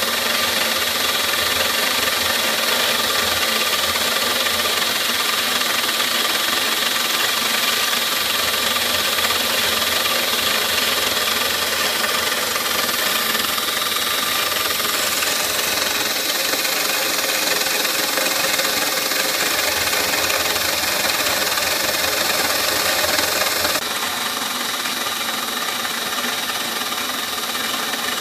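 CNC milling machine taking a finishing pass on a clear plastic block with a small end mill: a steady motor whine over the hiss of the cut. It turns a little quieter about 24 seconds in.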